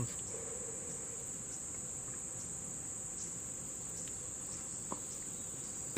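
Steady, unbroken high-pitched chorus of summer insects, with a faint click about five seconds in.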